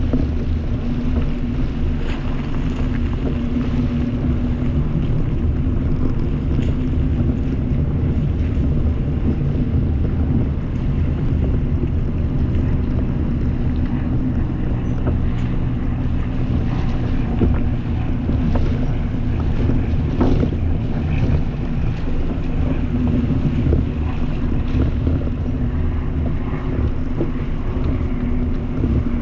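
A car driving at a steady pace: a steady low rumble of engine and tyre noise, with a few faint ticks.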